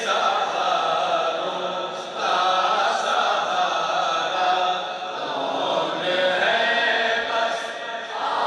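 A man reciting a naat in a sung, chanting voice into a microphone, with long held notes that bend in pitch.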